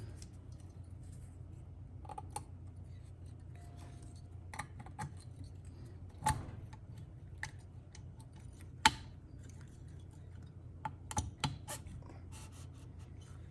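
Scattered small metal clicks and taps as the Honda TRX90's piston rings are pinched by hand and the cylinder is worked down over the piston. The sharpest click comes about nine seconds in, over a faint steady low hum.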